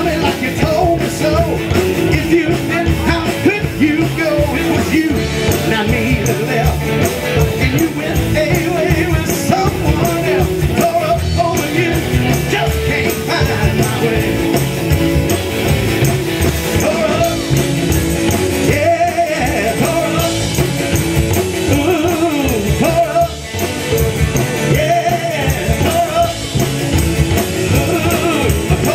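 Live rockabilly band playing: slap-style upright bass, electric guitars and drums, with a man singing lead into the microphone.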